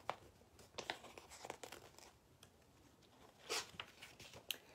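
Pages of a picture book being turned by hand: a few soft, short paper rustles and brushes, the loudest about three and a half seconds in.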